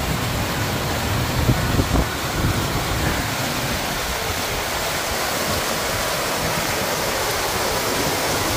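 Steady rush of water and wind from a pontoon boat running under ePropulsion X-40 electric outboard power, with some low buffeting in the first few seconds. No motor note stands out above the water noise: the electric outboard runs very quietly.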